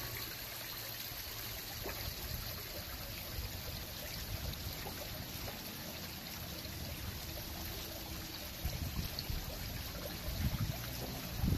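Water running and trickling steadily from a garden fountain. Low buffeting rumbles of wind on the microphone come in during the last few seconds.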